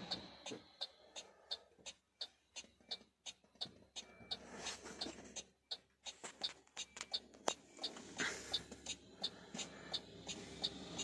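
Rapid, even ticking, about three ticks a second, inside a truck cab, over a low engine hum that drops away for a few seconds in the middle. A sharper click comes about seven and a half seconds in, followed by a short hiss.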